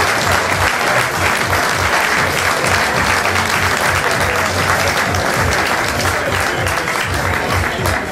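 Crowd applauding steadily, with music playing underneath.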